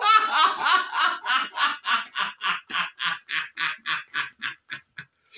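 A man laughing hard: one long laugh made of rapid bursts, about four a second, that grow shorter and fainter toward the end.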